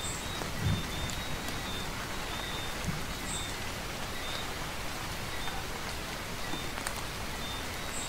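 Steady rain falling, an even hiss of drops, with faint short high chirps dotted through it and a low thump about a second in and again near the three-second mark.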